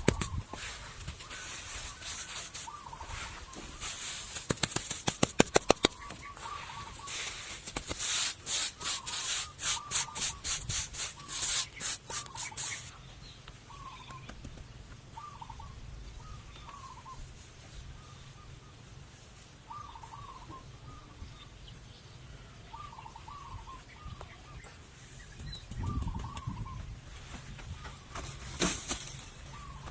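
A quick run of sharp knocks, then a steady series of rhythmic scraping strokes about two a second that stops about 13 seconds in. Short bird calls repeat throughout.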